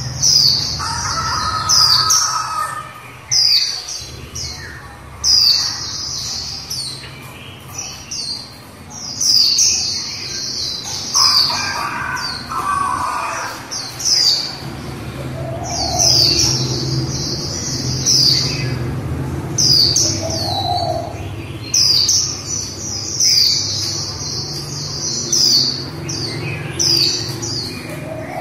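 Female white-eye chattering in rapid, high-pitched twittering bursts that come again every second or two, over a steady low hum. This 'líu' chatter of a hen white-eye is played to stir male white-eyes into singing.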